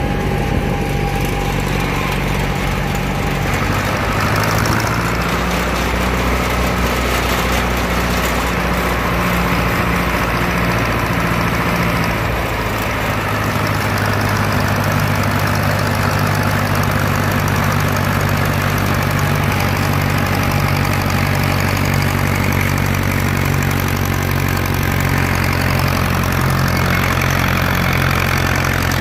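Ford farm tractor's engine running steadily under way on the road, heard from the seat, with the engine note shifting a little a few seconds in and again about halfway through.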